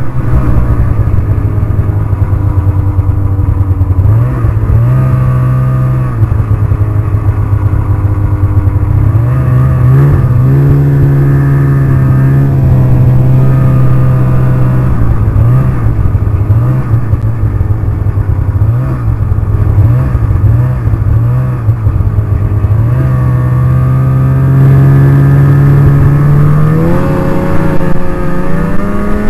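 Snowmobile engine running on the trail, its pitch rising and falling as the throttle is opened and eased. There are several quick dips in the middle and a steady climb in pitch near the end.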